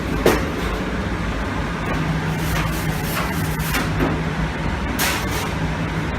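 Pellet burner firing inside a bakery oven's heat exchanger: a steady rush of flame and blower fan over a low steady hum, with several short sharp clicks and knocks scattered through it.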